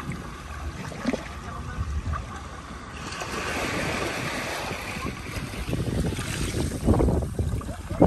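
Shoreline ambience: sea water washing over the rocks, swelling into a broad hiss about three seconds in, with wind rumbling on the microphone and a few stronger gusts near the end.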